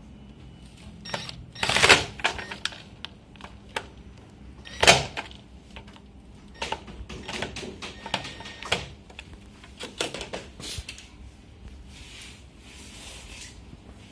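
Aluminium window profile and its fittings knocking and clicking as they are handled and fitted into place: irregular sharp clicks, with two louder clattering knocks about two and five seconds in.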